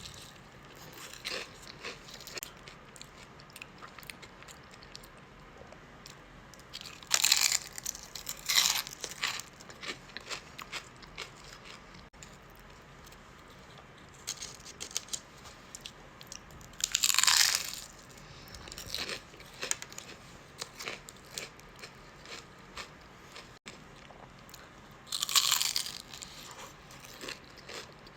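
Close-miked crunchy eating of deep-fried crab rangoons: four loud crisp bites, two close together about seven to nine seconds in, then one near the middle and one near the end, with quieter crackly chewing between them.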